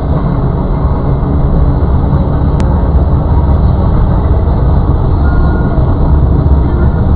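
Steady, loud rumble of a moving car's engine and tyres heard inside the cabin, with one brief click about two and a half seconds in.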